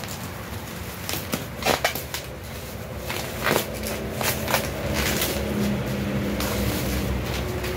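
Black plastic parcel wrapping and bubble wrap rustling and crinkling as it is pulled open by hand, in irregular crackles and rips, over a steady low hum.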